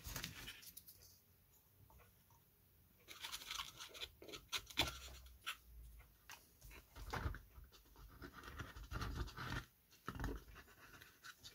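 Faint, scattered rustles, rubs and light knocks of hands handling a small balsa-wood box and a plastic glue bottle while glue is run into the joints, starting after about three seconds of near silence.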